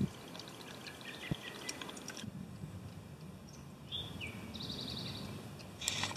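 Water trickling and dripping from an improvised charcoal-and-sand filter into a receptacle below, with small birds calling. About two-thirds through, one falling chirp and a short, fast trill stand out.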